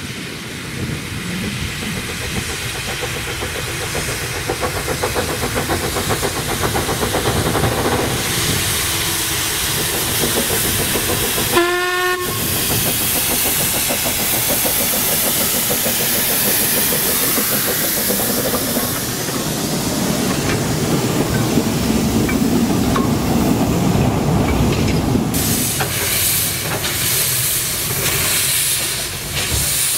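Narrow-gauge steam locomotive working, its exhaust beats mixed with steam hissing, the hiss strongest in the middle of the stretch. A brief whistle toot sounds about twelve seconds in.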